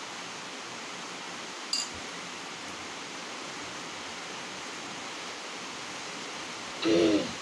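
Steady hiss of heavy rain, with a brief light clink about two seconds in and a short voiced sound from the eater near the end.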